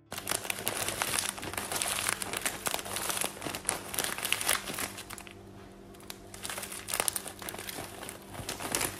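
Plastic bag of shredded mozzarella crinkling as hands squeeze and shake the cheese out onto a plate, with a short lull a little past halfway.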